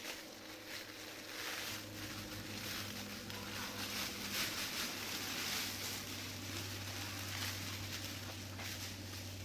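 Thin foil sheeting of an emergency pop-up tent crinkling and crackling as it is handled, unevenly, loudest in the middle stretch, over a steady low hum.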